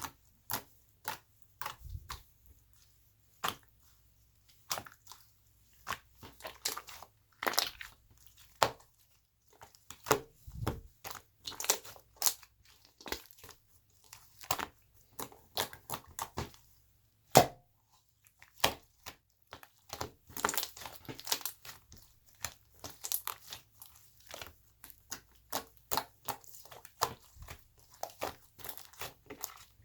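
Slime being squished, poked and stretched by hand, giving irregular sticky pops and crackles, with a denser run of crackling past the middle and one louder pop a little past halfway.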